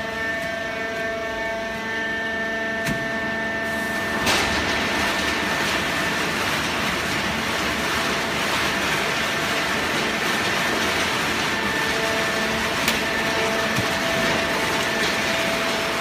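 Fully automatic horizontal hydraulic cardboard baler running: a steady machine hum with several held tones, then a clunk about four seconds in, after which a steady rushing noise takes over.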